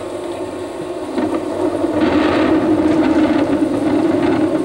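Recorded thunderstorm sound effect played over loudspeakers: a rumble of thunder that swells louder about two seconds in, over a steady hiss.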